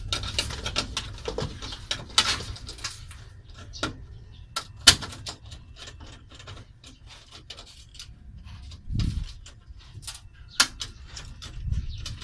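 Hands working behind a metal dashboard panel to loosen the retaining hardware of a gauge: scattered clicks, light metallic knocks and rustling, with one sharp click about five seconds in and a couple of duller thumps later.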